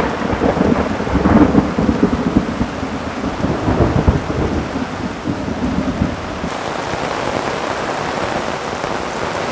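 Thunder rumbling on in irregular surges during a heavy thunderstorm and dying away about six seconds in, over steady heavy rain that carries on alone afterwards.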